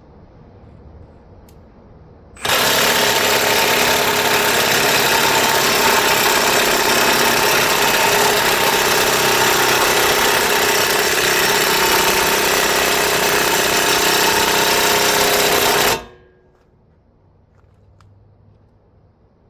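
Cordless impact wrench hammering steadily for about thirteen seconds on a seized front hub assembly fastener, starting and stopping abruptly; the part is not coming loose.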